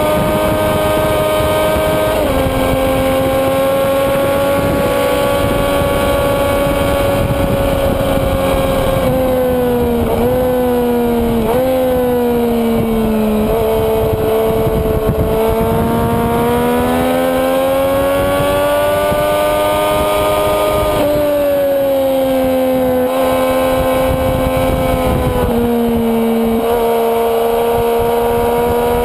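Sport motorcycle engine at high revs heard from onboard the bike, holding a high pitch with a few sudden small drops and slow rises and falls, over wind rush.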